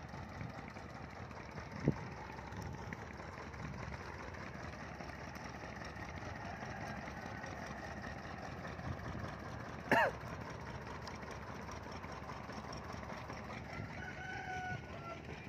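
A steady low engine hum, with a short sharp sound about ten seconds in and a chicken calling near the end.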